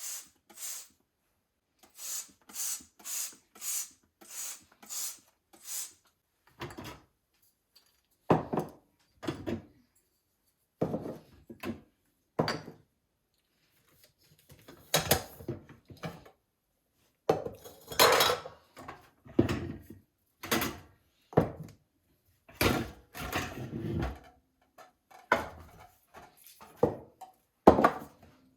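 Kitchen cleaning and tidying sounds. First comes a quick run of about eight swishing strokes, then irregular clunks and knocks as dishes and other hard kitchen items are handled and set down.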